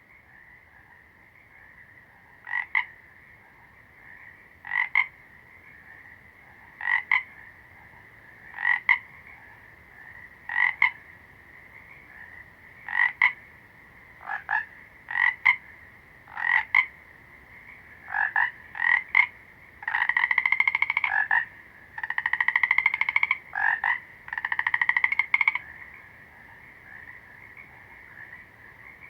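Frogs croaking: a steady chorus behind, with a nearer frog giving short croaks every couple of seconds, then three longer pulsed croaking runs about two-thirds of the way through.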